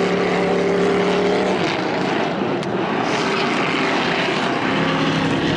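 Several demolition-cross pickup trucks racing on a dirt track, their engines running hard in a loud, steady drone. One engine's steady note drops away about a second and a half in, leaving a rougher mix of engines, then a steady note returns near the end.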